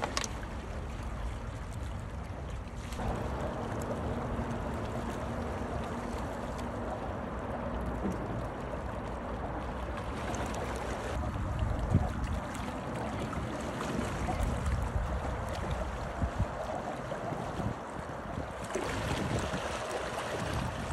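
Wind buffeting the microphone over seawater washing and lapping against shoreline rocks, a steady rushing noise that shifts abruptly in character a few times.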